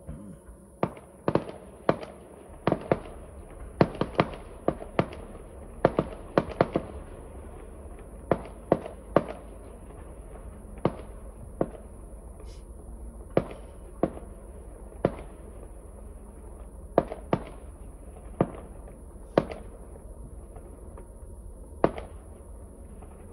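Fireworks bursting in an irregular string of sharp bangs, close together for the first seven seconds or so, then thinning to about one bang a second.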